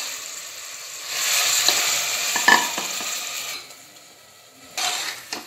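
Marinated mutton sizzling in hot oil in a pressure cooker while a metal ladle stirs and scrapes it, with a few sharp clinks of the ladle on the pot. The sizzle drops away for about a second near the end, then briefly returns.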